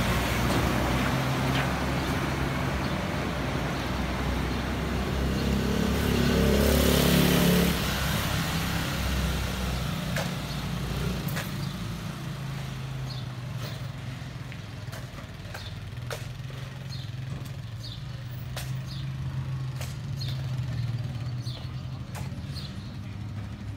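A motor vehicle's engine running and passing close, loudest about six to eight seconds in, with a steady low engine hum carrying on afterwards. Short high bird chirps join in during the second half.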